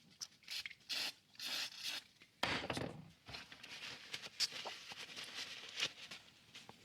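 Faint rubbing and scraping strokes with small clicks: small motorcycle switch parts being handled and their contacts rubbed clean.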